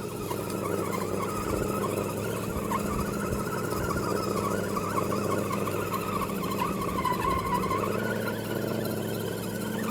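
Axial SCX10 RC crawler's electric motor and gears whining as it climbs loose, steep ground, the pitch wavering up and down with throttle and load.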